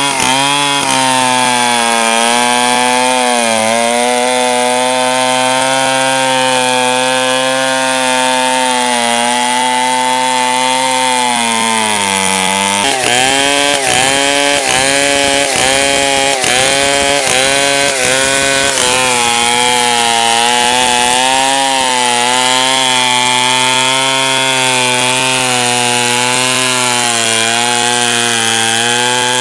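Two-stroke chainsaw running under load as it rips a log lengthwise into planks. The engine note holds steady, sags about twelve seconds in, then wavers up and down for several seconds before settling.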